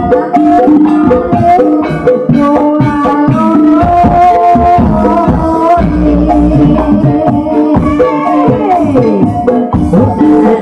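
Live Javanese gamelan music accompanying an ebeg horse dance: a busy melody on struck metal keys over hand-drum strokes, with a deep low stroke swelling about six seconds in and a pitch sliding down near the end.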